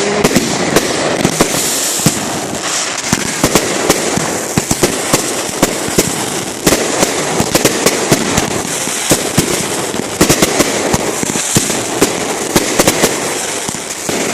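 A barrage of fireworks going off without pause: many sharp bangs, several a second, over continuous crackling.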